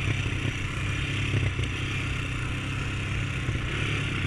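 Honda ATV's single-cylinder four-stroke engine running steadily as the quad rides along a desert trail.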